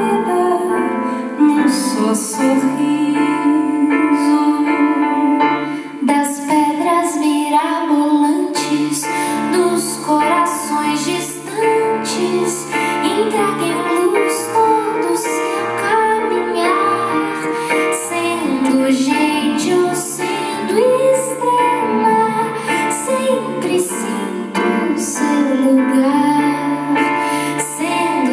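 A woman singing a slow, tender ballad in Portuguese, accompanied by a grand piano.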